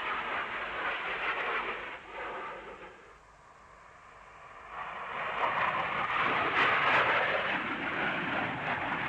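Jet noise of a low-flying Panavia Tornado with twin RB199 turbofans passing close: a roar that fades about two seconds in, then a second pass builds to its loudest around seven seconds in and stays loud.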